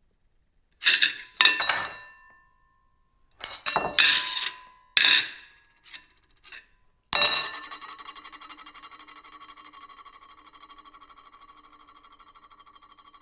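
Ceramic plate knocked and clattered on a hard surface in a series of clinks, then struck hard at about seven seconds. After the hard hit it rings on with a wavering, slowly fading tone.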